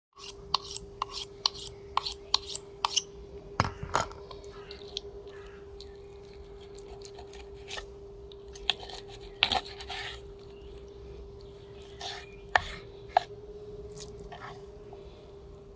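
Mora Companion knife blade stroked along a sharpening steel, quick sharp strokes about three a second for the first three seconds. Then the knife cuts raw chicken thighs on a bamboo cutting board, with a few single sharp knocks of the blade on the board, over a steady hum.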